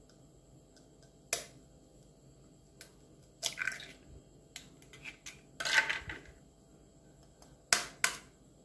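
Sharp taps of a steel spoon cracking eggshells, with wet squishing as an egg is pulled open and its contents drop into a steel mixer jar. Two quick taps near the end start cracking the next egg.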